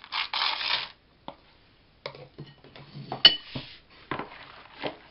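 A spatula scraping candied fruit out of a small plastic bowl into batter, then scraping and tapping against a plastic mixing bowl as it stirs, with one sharp click about three seconds in.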